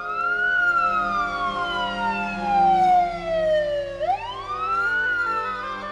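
Emergency vehicle siren wailing, rising quickly and falling slowly, then rising again about four seconds in, over sustained background music.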